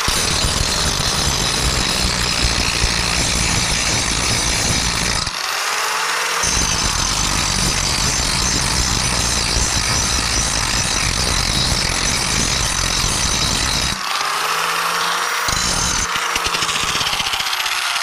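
Angle grinder grinding down high spots and weld slag on a steel bunk, a steady loud grinding with two short pauses, about five seconds in and again around fourteen seconds.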